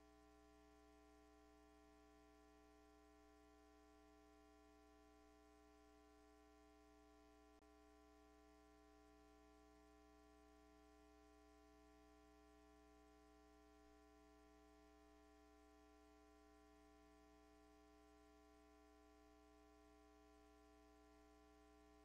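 Near silence: only a faint, steady electrical hum made of several constant tones.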